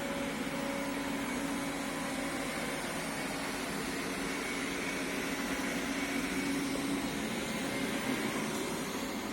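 Aldi Easy Home robotic vacuum cleaner running with a steady motor hum.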